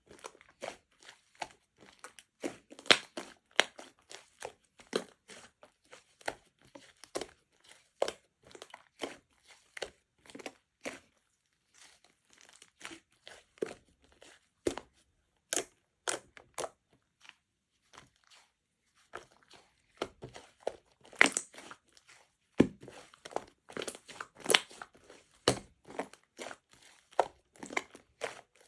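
Close-up, irregular crunching and crackling: many short sharp clicks, several a second, with brief pauses.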